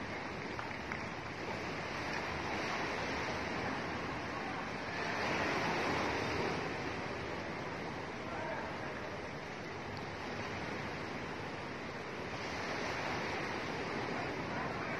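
Steady outdoor noise of wind and lapping water, swelling about five seconds in and again near the end.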